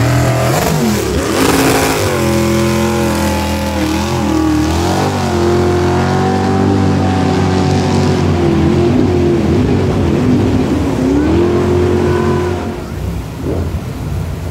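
Racing jet boat engine running hard at close range, its pitch dropping in the first couple of seconds as the boat passes, then rising and falling with the throttle. Near the end the engine fades and the rush of river rapids comes through.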